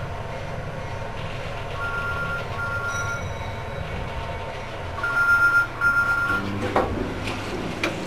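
Original 1990 Mitsubishi elevator car travelling down with a low running hum. A two-tone electronic beep sounds in pairs about every three seconds, loudest about five seconds in, and a couple of sharp clicks come near the end.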